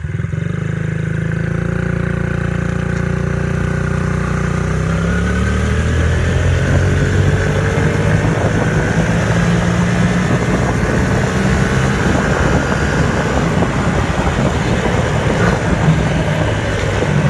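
Dirt bike engine running while under way, its pitch rising as it speeds up over the first several seconds, then holding steady with a rushing noise over it.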